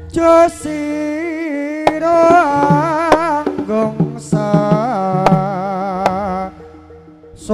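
Live Javanese jaranan music: a wavering, ornamented lead melody over sharp drum strokes and steady held low tones. The lead drops out for a moment near the end, then comes back with a loud stroke.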